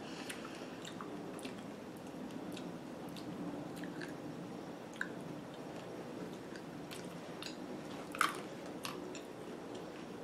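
Close-up eating of a chocolate-covered strawberry: soft, wet chewing with scattered small clicks, and one louder click about eight seconds in.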